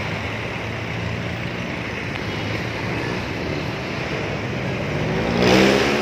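Street traffic of jeepneys and motor tricycles: engines running steadily, with one engine revving up louder close by about five and a half seconds in.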